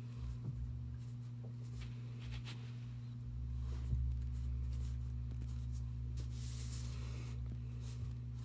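Faint scratching and dabbing of a small paintbrush laying paint onto paper and picking up paint from a paper plate, over a steady low hum. A small click about four seconds in.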